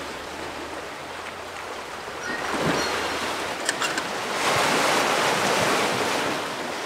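Small sea waves washing over a rocky shore, swelling louder about halfway through, with a couple of faint clicks near the middle.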